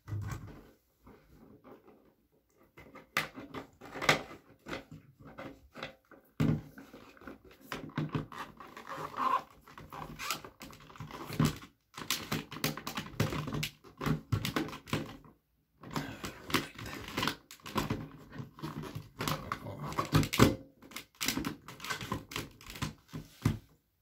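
Plastic smoke detector being pushed and twisted onto its ceiling mounting plate by hand: a run of irregular plastic clicks, knocks and scraping.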